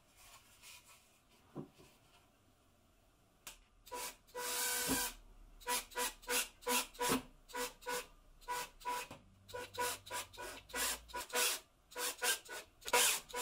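A 14.4 V cordless drill-driver drives screws into the softwood panel of a box step stool. After a few light knocks, the motor runs once for about half a second, about four seconds in. Then come many short bursts of the motor, roughly two or three a second.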